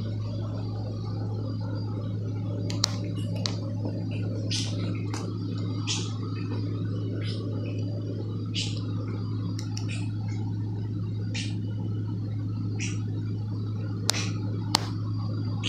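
A steady low hum runs throughout, with scattered short rustles and a few sharp clicks, about three seconds in and twice near the end, as the phone is handled close to the hair.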